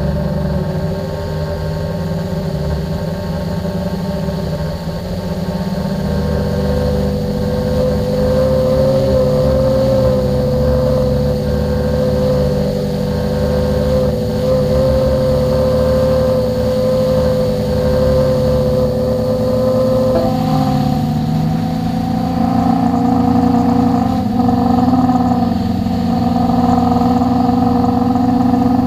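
Quadcopter's electric motors and propellers whining steadily, heard close up from the camera mounted on the drone. About two-thirds of the way through the tone jumps higher as the motor speed changes.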